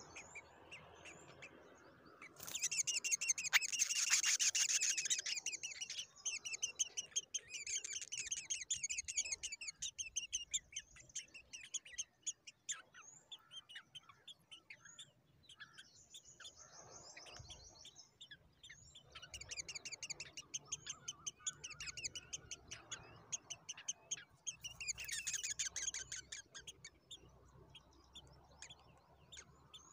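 Nestling birds begging for food with rapid, high-pitched chirping while an adult is at the nest. The chirping comes in several bursts, the loudest a few seconds in and another near the end, with scattered quieter chirps between them.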